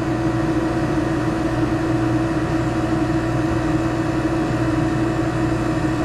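A 12-volt DC marine air conditioner, a 5,000 BTU cool-only unit, running steadily: an even hum from the compressor and blower with a steady mid-pitched tone, drawing just over 28 amps.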